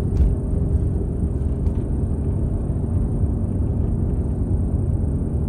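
Steady low rumble of a car's road and engine noise heard inside the cabin while driving, with a couple of faint ticks about a second and a half apart.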